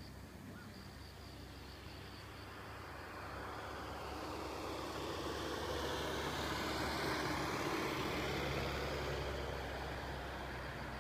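Dump truck passing by on the road below: its engine and tyre noise builds to a peak about seven seconds in, then fades. A pulsing insect chirp is heard in the first few seconds, over a steady low engine hum.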